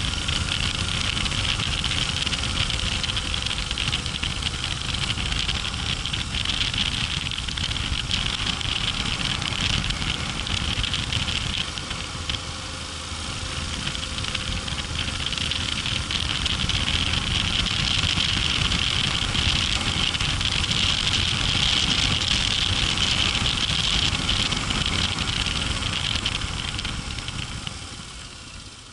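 Yamaha Ténéré 700's parallel-twin engine running on the move, under a steady rush of wind over the microphone. The noise eases briefly about halfway through and drops away near the end.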